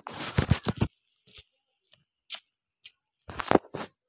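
Quick scuffs and knocks: a rapid cluster in the first second, a few single clicks, then another cluster near the end.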